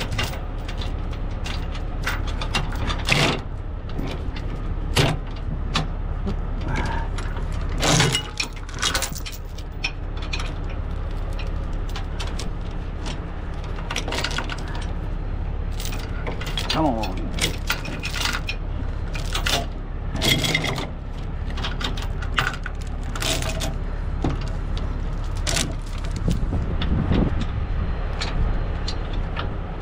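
Heavy steel tow chains clanking and rattling against hooks and the truck's frame as they are hooked up, in irregular sharp clinks, over a steady low engine idle.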